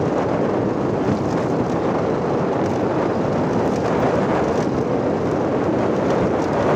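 Steady rush of wind on the microphone mixed with road noise from a motorcycle riding over a loose gravel road.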